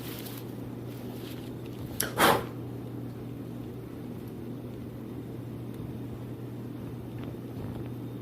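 Radiator box and packing being handled: one short, loud scrape about two seconds in, over a steady low hum.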